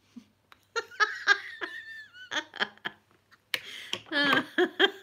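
A woman laughing in repeated bursts, with a short pause about three seconds in.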